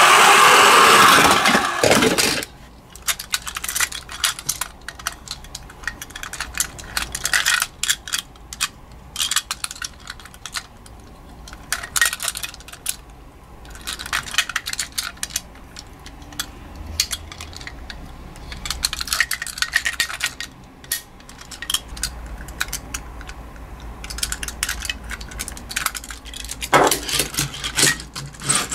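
Small die-cast metal toy ambulances clicking and clinking against each other as they are picked up and handled out of a cardboard box: a long run of irregular sharp taps. A loud steady noise cuts off about two seconds in, and a louder sound comes back near the end.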